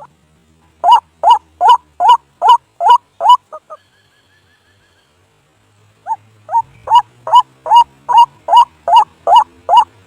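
White-breasted waterhen (ruak-ruak) calling: a series of loud, harsh single notes repeated about two and a half times a second. The series stops for about two seconds, with only a faint, quicker trill in the pause, then starts again. It is the call played as a lure to draw waterhens in to a trap.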